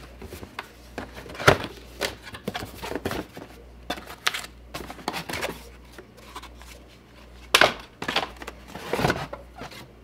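Cardboard box being opened and handled by hand: flaps pulled apart and cardboard scraping and rubbing, broken by irregular sharp knocks, the loudest about one and a half seconds in and again about three-quarters of the way through. Near the end a plastic part is drawn out of the box.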